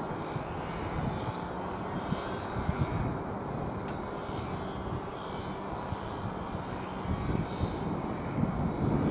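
Steady, distant rumble of a twin-engine jet airliner cruising overhead above 10 km.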